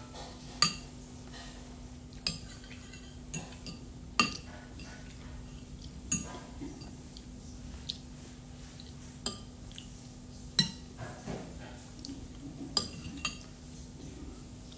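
Spoon and fork clinking and scraping against a plate while eating rice: about ten separate sharp clinks at irregular intervals, over a faint steady hum.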